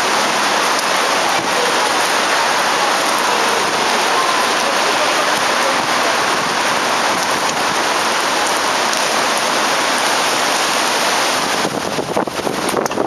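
Steady hiss of rain on wet pavement and roadway, with rough buffeting of wind on the microphone starting near the end.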